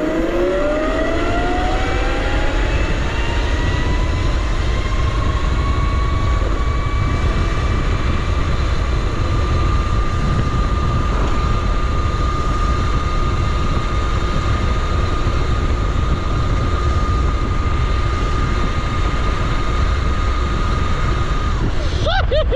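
Razor RSF 650 electric motorcycle's motor whining, rising steadily in pitch as it accelerates hard, then holding a steady high whine at speed before cutting off near the end. Heavy wind rumble on the microphone runs underneath.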